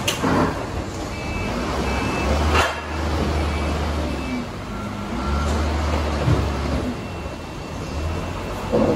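Forklift working in a warehouse loading yard: its engine running with a low hum that rises and falls, its reversing alarm giving short, high beeps, and a few sharp clunks of loading.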